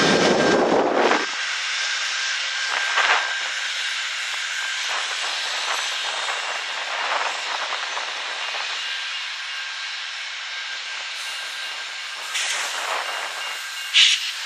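Amtrak passenger train arriving: the deep engine sound of the GE P42 diesel locomotives cuts off about a second in, and the bilevel passenger cars then roll slowly past with a steady hiss as the train brakes toward a stop. A brief sharp high sound comes near the end.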